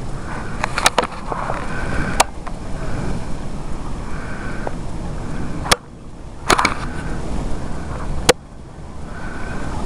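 Wind rumbling on a camcorder microphone outdoors in snow, with about five sharp clicks and knocks from handling the camera.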